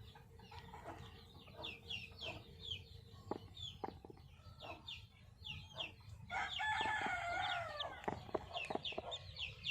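Newly hatched chicks cheeping: a steady run of short, high, falling peeps. A rooster crows once, for close to two seconds, a little past the middle.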